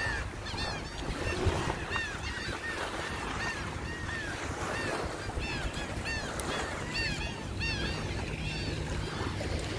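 Many birds calling over and over, short calls that rise and fall in pitch, several overlapping at once, over a steady low rumble of wind and surf.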